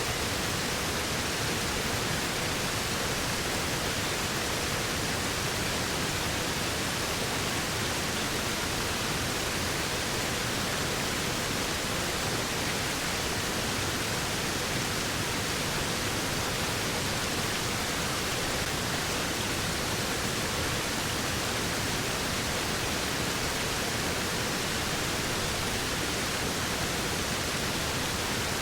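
Waterfall: a steady, unbroken rush of falling water, an even hiss across high and low pitches.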